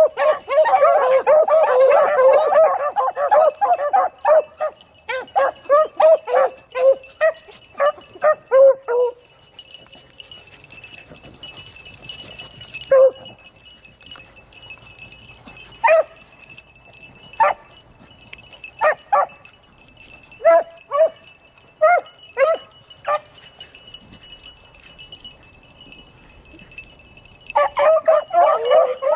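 A pack of beagles baying while trailing a rabbit. A dense chorus of overlapping bawls thins to separate barks about nine seconds in, single barks come at intervals through the middle, and the full pack opens up again near the end.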